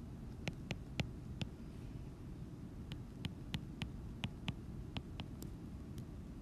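Plastic stylus tip tapping and clicking on a tablet's glass screen while numbers are handwritten: a dozen or so sharp, irregular clicks over a low steady hum.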